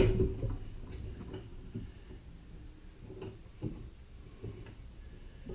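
Pipe clamp on a wooden molding flask being worked by hand as it is tightened: a sharp knock at the start, then scattered light ticks and clicks of metal on wood.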